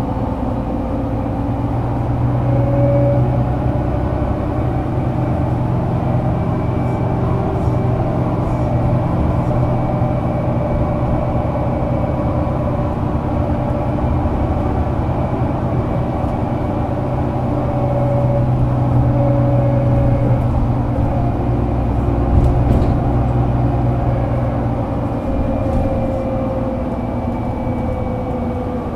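Solaris Urbino 12 III city bus engine running on the move, heard on board as a steady drone. The engine note rises and falls gently a couple of times, with a few faint clicks.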